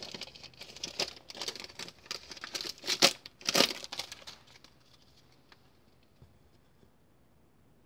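Foil wrapper of a trading card pack being torn open and crinkled by hand, a quick run of crackles and tearing noises that stops about four seconds in.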